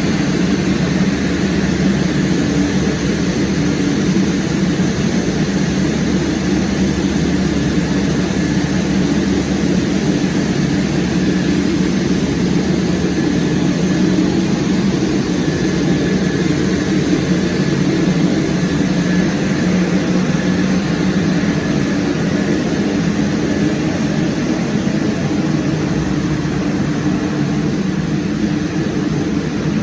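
Steady drone of an aircraft in flight: engine and rushing-air noise with a low hum, unchanging throughout.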